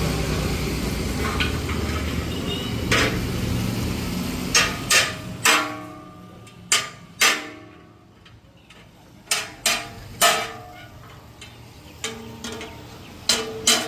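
Hammer blows on metal, about ten sharp strikes spread irregularly over the second half, each leaving a short metallic ring. At first a low engine rumble runs underneath and fades away.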